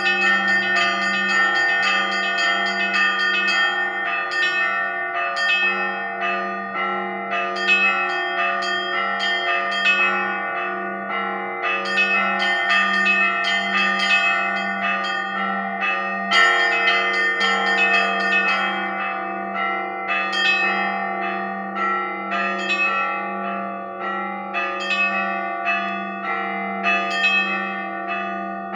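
A peal of Russian Orthodox church bells: frequent strikes on the small high bells, about once or twice a second, over the continuous ringing of the lower bells.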